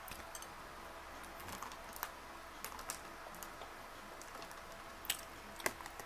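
A person chewing food close to the microphone: irregular soft mouth clicks and wet smacks.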